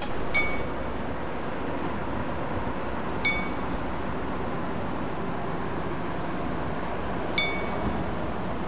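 A small metal bell struck three times, about three and four seconds apart, each strike ringing briefly, over a steady background rush.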